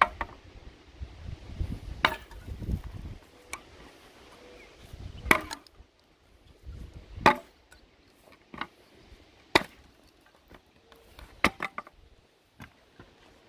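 Sharp blows of a swung tool striking a wooden pallet, about ten hits at irregular intervals of one to two seconds, knocking the boards loose.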